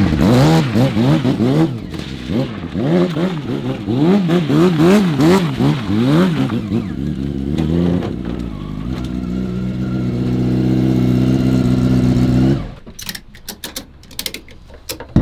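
Stunt motorcycle engine revved in quick blips that rise and fall, then held at a steady, slowly rising note under load as the bike is ridden up a loading ramp. It cuts off suddenly about 12.5 seconds in, followed by a few sharp clicks from a tie-down strap being fitted.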